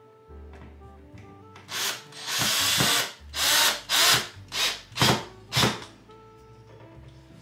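Power drill running in bursts, beginning about a second and a half in: one longer run, then about five short, quick bursts, as in driving screws to mount something. Quiet background music plays under it.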